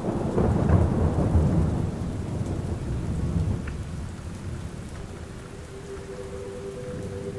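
Rolling thunder over steady rain: the rumble is loudest in the first couple of seconds and dies away over the next two. About five seconds in, a low steady hum of two held notes joins the rain.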